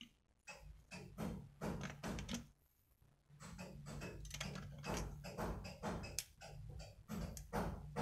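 Rapid small clicks and rattles of handling: fingers picking through a plastic precision screwdriver case and its metal bits. A low steady hum comes in about three seconds in.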